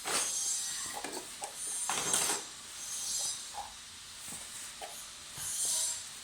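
Toy kitchen pieces being handled and put away: scattered light clicks and knocks with a few short rustles.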